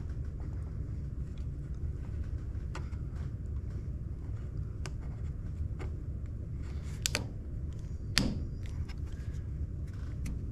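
Scattered light clicks and knocks from a PEX pipe being twisted and pulled in a brass SharkBite push-fit tee, the sharpest about eight seconds in, over a steady low rumble.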